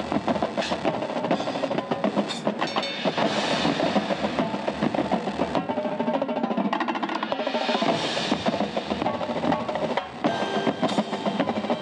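Marching drumline of snare drums, tenor drums and bass drums playing a fast, busy percussion passage, with a brief drop in level about ten seconds in.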